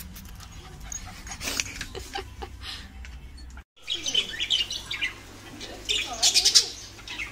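Budgerigars chattering in a group, a quick run of short high chirps that begins just after a brief drop-out about halfway through and is loudest near the end. Before that there is only a low steady hum with a few soft clicks.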